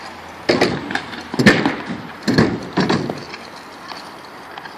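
Kick scooter clattering on concrete: four sharp knocks over about three seconds, then only background noise.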